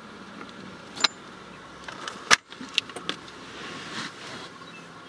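Steady car-cabin background noise broken by a few sharp clicks and knocks, the loudest about two and a half seconds in.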